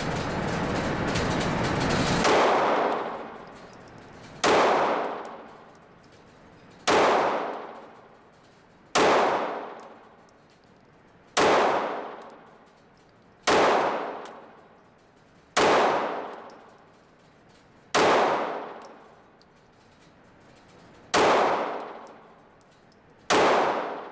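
Glock 26 9mm subcompact pistol fired slowly, about ten single shots roughly two seconds apart, each followed by a long echo in the indoor range. Before the first of these shots, a harsh noisy stretch fills the first two seconds. The pistol is feeding and cycling without failures.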